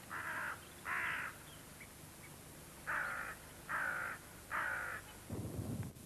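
A crow cawing five times, two harsh caws and then, after a pause, three more, each about half a second long. Near the end a low rumbling noise comes in.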